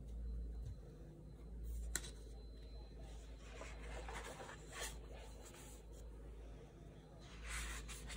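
Paper rustling and sliding as a sketchbook page is turned over, with a sharp tick about two seconds in and rustling swells in the middle and near the end, over a low steady hum.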